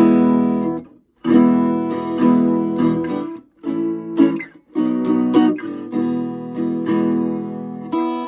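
Levin parlor acoustic guitar being strummed in ringing chords. The playing breaks off briefly about a second in, and again for short moments around three and a half and four and a half seconds in.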